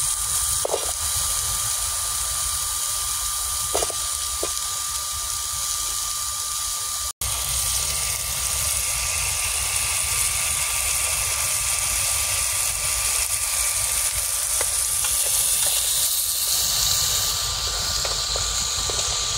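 Fan-assisted wood-burning camp stove running under a pot of courgettes: a steady hiss and rumble from the fan-fed fire, with a thin steady whine from the fan motor and a few faint ticks in the first few seconds. The sound drops out briefly about seven seconds in.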